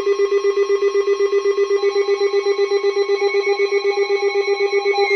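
Emergency Alert System alert tone: a loud, steady electronic tone pulsing rapidly, about seven times a second, with a ringing, bell-like quality that grows brighter about two seconds in.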